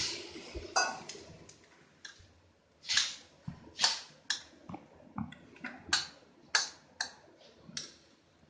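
A spatula scraping and knocking against a wok while stir-frying sliced mushrooms and onion: about a dozen short, irregular strokes, a few of them longer scrapes.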